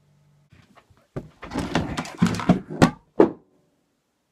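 Handling noise from a camera phone being moved and set down: rustling with several knocks and thumps, starting about a second in, with two sharp knocks just before the sound stops.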